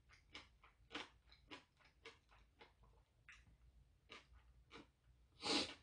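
A person chewing a mouthful of pork and blood-sausage soup: soft, irregular wet mouth clicks and smacks. A short, louder breath comes near the end.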